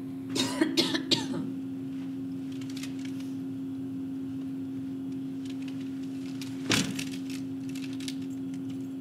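A person coughing a few times in quick succession about half a second in, and once more near seven seconds, over a steady room hum.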